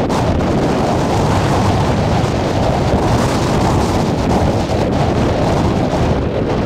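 Strong typhoon wind buffeting the microphone in a loud, steady rumble, over heavy surf.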